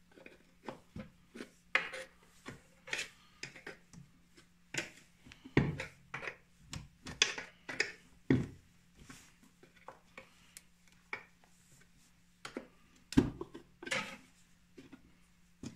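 Hands working a snowmobile's chain case cover loose off its shaft: irregular small clicks, clinks and rubbing of metal and plastic parts, with louder knocks about five and a half, eight and thirteen seconds in. A faint steady hum runs underneath.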